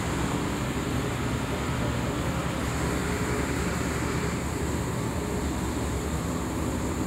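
Viscose hank dyeing machine running: a steady mechanical noise with a low hum from its drive and rotating rollers.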